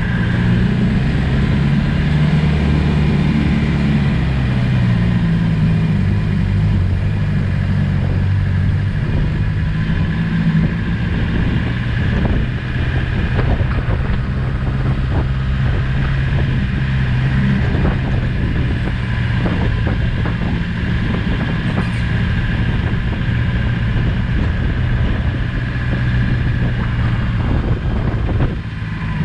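Land Rover Discovery's 200Tdi four-cylinder turbodiesel engine running as the vehicle drives off-road, its pitch rising and falling with the throttle. A steady high whine runs over it, and short knocks and rattles come and go in the middle.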